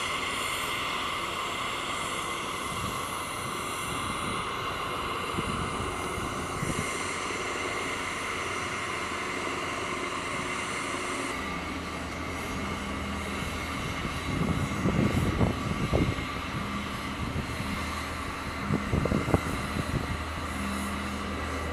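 Aircraft turbine engines whining steadily. Partway through this gives way to a low, steady drone broken twice by loud, gusty rumbles.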